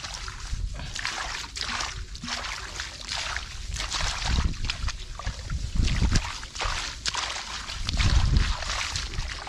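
Hands splashing and scooping through shallow muddy water in irregular strokes, with sloshing and dripping. It gets louder and deeper a few times, around the middle and near the end, as handfuls of mud and water are thrown.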